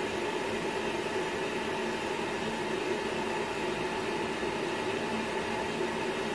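Cooling fans of a Cisco Catalyst 3750G network switch running fast at start-up, a steady whir with a faint hum under it. This is the high fan speed just after power-on, before the switch quiets down.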